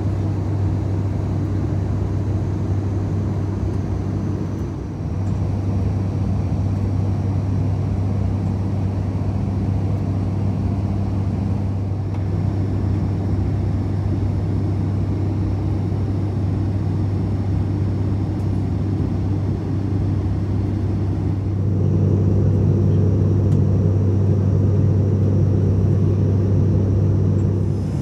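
Steady drone of an ATR 72-600's turboprop engines and propellers heard inside the cabin in flight, with a deep even hum under it. It grows a little louder about three-quarters of the way through.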